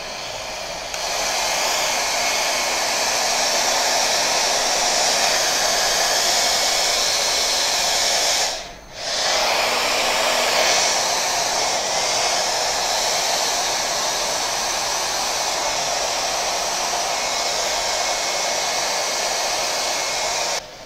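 Hand-held hair dryer blowing steadily during a blow-dry. It gets louder about a second in, cuts out for about half a second midway, then runs on and stops just before the end.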